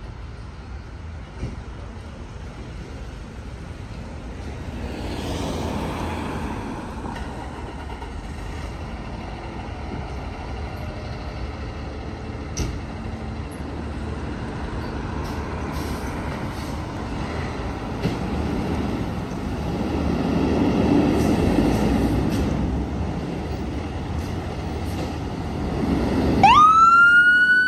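Fire engine diesel running as the apparatus pulls out of the station, the engine noise swelling louder twice. Near the end a siren starts up with a quick rise in pitch.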